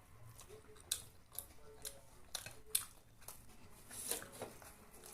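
A person chewing a big mouthful of food close to the microphone: irregular clicks from the mouth, with a few sharper ones.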